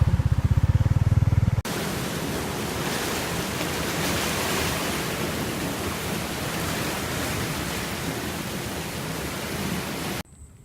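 A small engine runs with a fast, low putter for the first second and a half, then cuts abruptly to a steady, loud rushing noise. The noise carries on until near the end, when it cuts off to quiet.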